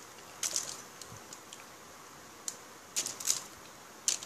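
Aluminium foil crinkling and crackling under fingers as food is scooped up by hand, in short clicky bursts: a cluster about half a second in, several around three seconds, and a sharp one just after four seconds.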